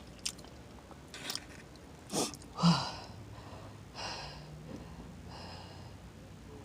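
A person chewing food with wet mouth smacks and clicks, then breathing out heavily twice, hard and breathy, over a mouthful of spicy food.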